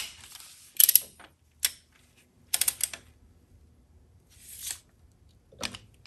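Irregular sharp clicks and metallic clinks from tools and parts being handled on the engine, plus a short scrape about two-thirds of the way through.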